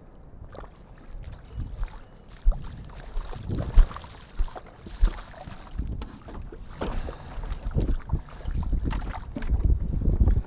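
Shallow water splashing and sloshing around a windsurf board, with irregular knocks and bumps as the board and rig are handled, and wind buffeting the microphone. A thin steady high whine runs underneath.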